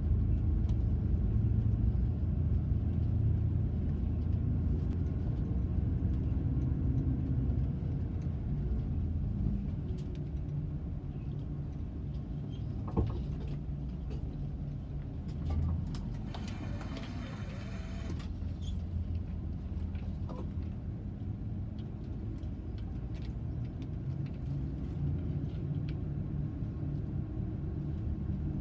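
Car on the move: a steady low rumble of engine and road noise, with a single sharp click about halfway through.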